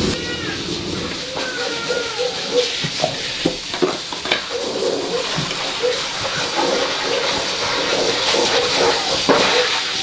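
Wood fire crackling in a small metal stove under a pot that is boiling, with sizzling and bubbling and a few sharp knocks as firewood is pushed in with tongs.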